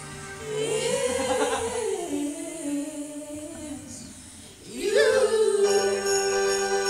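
A voice singing long drawn-out notes: a slow falling phrase, then about five seconds in a swoop up into one long held note.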